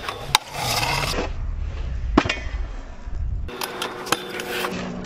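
Stunt scooter wheels rolling over concrete with a low rumble, broken by sharp clacks as the scooter hits the ledge and lands: a loud one about two seconds in and a cluster of several near the end.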